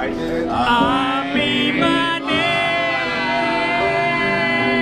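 A man singing into a microphone, holding long notes with a wavering pitch, over electric keyboard accompaniment.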